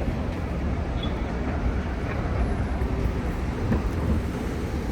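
Steady low rumble of street traffic, with no single vehicle standing out.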